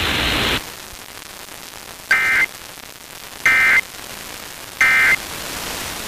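Three short bursts of Emergency Alert System digital data, the warbling two-tone SAME end-of-message code, about a second and a half apart. They mark the end of the alert and come over the hiss and static of a weak, distant FM signal. A louder hiss cuts out about half a second in.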